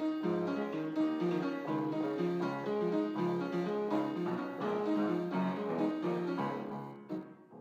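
Background music: a keyboard instrument playing a steady, busy run of notes that dies away near the end.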